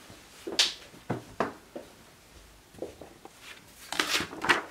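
Handling noises: several light knocks and rustles as fabric and paper are moved about and set down on a cutting table, with a longer burst of paper and fabric rustling about four seconds in.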